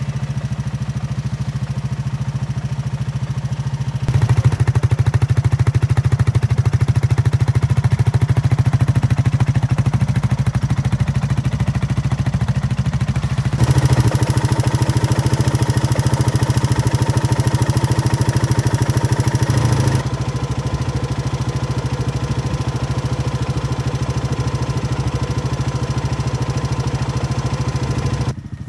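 Honda TRX 500 FPA Foreman ATV's single-cylinder engine idling steadily. It is louder for stretches as the microphone comes close to the engine, and it cuts off abruptly near the end.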